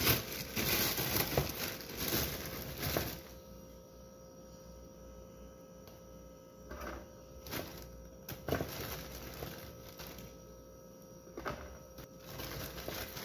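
A plastic bag of frozen cheese bread rustling and crinkling as it is opened and handled, for about the first three seconds. After that come several light, separate clicks and knocks of kitchen handling, including a metal baking tray being picked up, over a faint steady hum.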